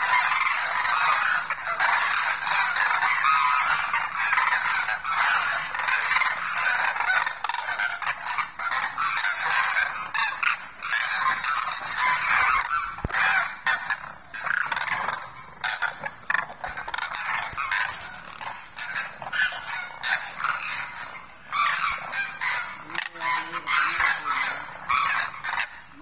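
A large flock of demoiselle cranes calling together while feeding, a dense chorus of many overlapping honking calls. The calling thins out and becomes more broken in the second half.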